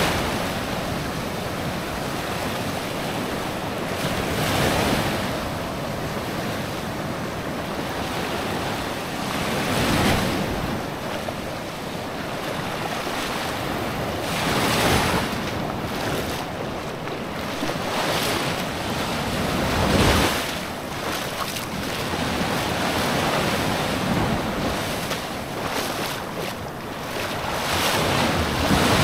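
Sea waves breaking and washing on a sandy beach, each one swelling and fading over a second or two, about every five seconds, over a steady hiss of wind on the microphone.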